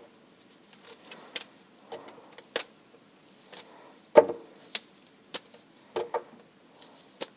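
Rubber bands being pulled off a wet, dyed fabric bundle: a run of short, sharp snaps and clicks about once a second, the loudest about four seconds in.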